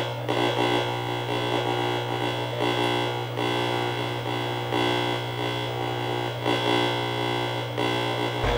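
Distorted electronic drone: a steady low hum under layers of sustained buzzing tones.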